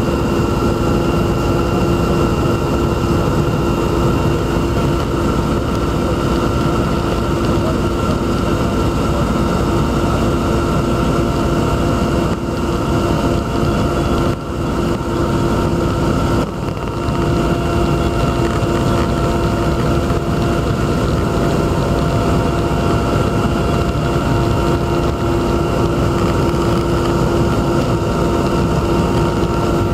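Steady drone of an aircraft's engines heard from inside the cabin, with a constant hum tone over a rushing noise. It dips briefly a few times about halfway through.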